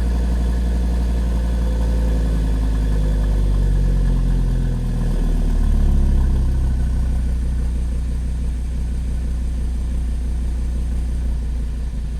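2013 Audi TT RS's turbocharged 2.5-litre five-cylinder engine idling through its cold-start warmup; a few seconds in, the idle speed drops and settles to a steady lower idle, typical of the warmup routine's raised idle ending.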